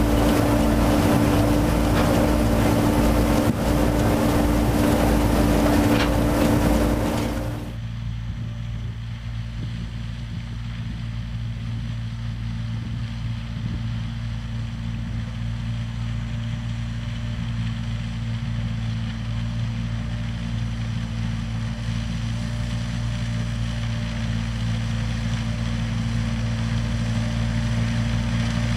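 Ropa Tiger 6 sugar beet harvester running at work: a steady diesel engine hum with low, even tones that slowly grows louder as the machine comes closer. About eight seconds in, the sound cuts abruptly from a louder, hissing whirr to this quieter hum.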